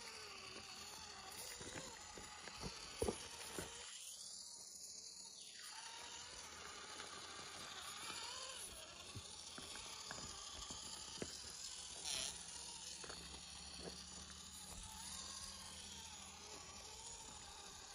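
Axial SCX24 micro crawler's small electric motor and gearbox whirring faintly, the pitch rising and falling with the throttle as it crawls over rock, with a few sharp clicks and knocks of tyres and chassis on stone, the loudest about three seconds in. The sound cuts out briefly around four seconds in.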